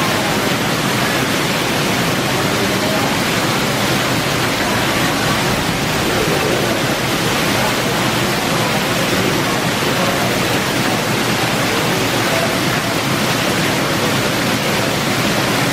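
Heavy rain in a steady downpour, with water streaming off a roof edge and splashing onto a tiled patio, heard as a loud, unbroken hiss.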